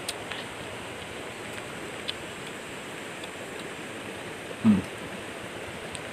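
Steady hiss of flowing river water, with a few faint clicks and one short, low voice sound falling in pitch about four and a half seconds in.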